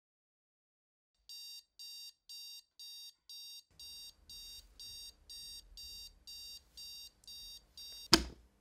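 Digital alarm clock beeping, high-pitched and evenly spaced about twice a second, starting a little over a second in. Near the end a single loud thump, the clock being hit, cuts the beeping off.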